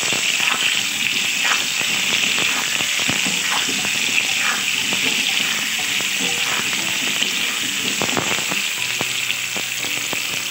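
Boiled whole potatoes frying in hot oil in a kadai: a steady sizzle, with a metal spatula scraping and knocking against the pan now and then as they are stirred.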